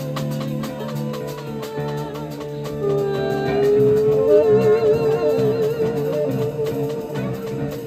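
Live psychedelic jazz band playing over a drum kit and bass. About three seconds in, a lead instrument takes a long held note that slides up slightly and then wavers in a wide vibrato.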